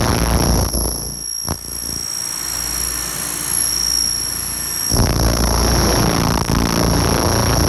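Laser cleaner stripping paint from a painted Harley-Davidson fender: a loud hiss while the beam ablates the paint. It drops away just under a second in and returns about five seconds in, over a steady high whine.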